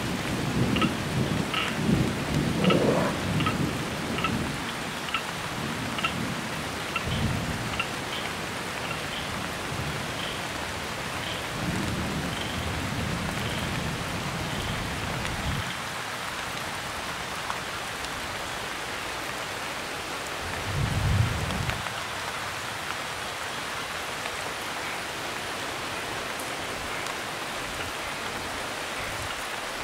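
Heavy tropical rain pouring steadily, with rolls of thunder: several in the first few seconds, another around twelve seconds in, and a short loud one about twenty-one seconds in. A faint short high peep repeats about once a second through the first half.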